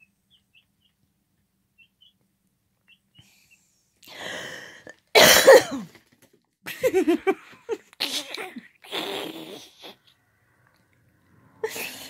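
A person coughing hard, a run of harsh coughs starting about four seconds in, the loudest just after five seconds, then several more over the next four seconds. Before the coughing, a few faint high peeps from baby chicks.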